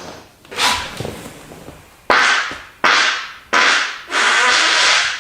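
A run of farts: short, airy bursts that each start sharply and fade quickly, the last held for about a second near the end.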